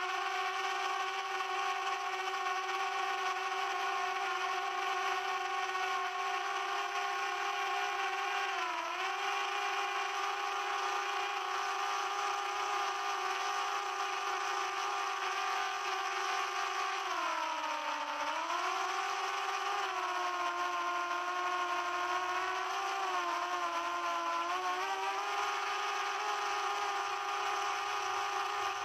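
Multirotor drone's motors and propellers whining at a steady pitch. The pitch sags and recovers about nine seconds in, again around eighteen seconds, and a few more times after that as the throttle changes.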